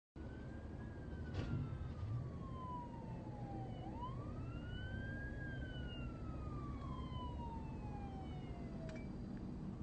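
Police car siren wailing, its pitch rising and falling slowly twice, heard from inside a car over a steady low engine and road rumble. Two short knocks come in the first couple of seconds.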